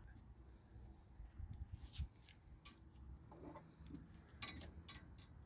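Night insects trilling steadily with a high, pulsing tone, and two sharp clicks from handling a hooked fish while unhooking it; the second click, about four seconds in, is the loudest.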